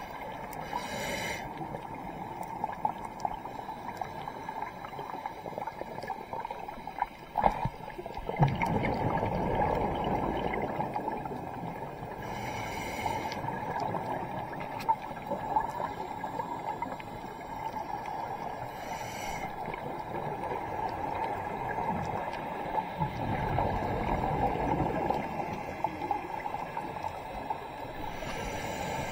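Scuba diver's breathing through a regulator, recorded underwater. A hiss comes on each inhale and a low bubbling rumble on each exhale, a few breaths spaced several seconds apart, over a steady underwater wash.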